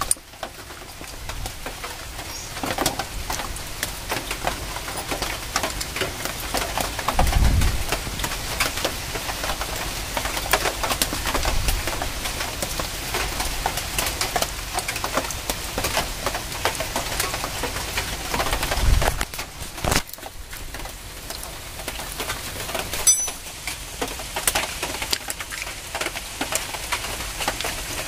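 Irregular small metallic clicks and taps from a Bajaj Pulsar's front brake caliper as new brake pads and their retaining pin are fitted by hand, with a few dull knocks among them.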